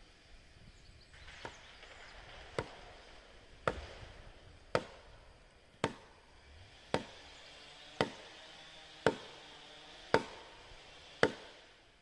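Ten evenly spaced axe blows struck into the trunk of a standing tree, about one a second. Each blow is sharp with a short ring, and the first few grow louder.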